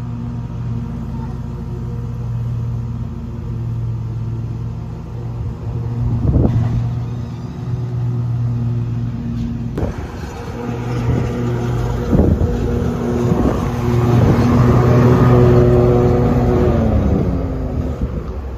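Vehicle engine running steadily with a low hum, with a few knocks along the way, growing louder as it revs up for a few seconds near the end.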